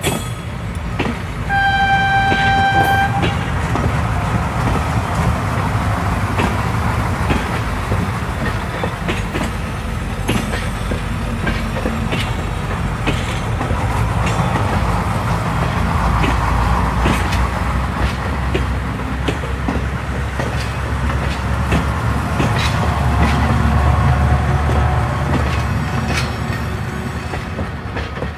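A train departing: a single short horn toot about a second and a half in, then a steady rumble of the moving train with the clickety-clack of wheels over the rail joints.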